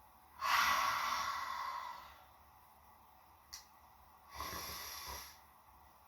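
A sleeping person's snoring breaths: a long airy breath lasting nearly two seconds, a brief click, then a second, shorter breath.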